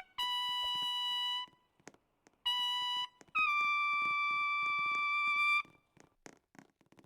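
Trumpet playing three held high notes, the first two on the same pitch and the third a little higher and longest, followed by faint clicks.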